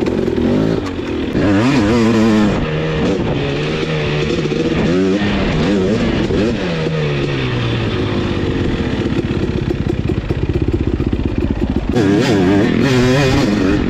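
Husqvarna TC250 two-stroke dirt bike engine being ridden hard, its pitch rising and falling as the throttle is opened and closed. It climbs sharply about two seconds in, falls away in a long glide a few seconds later, and revs up again near the end.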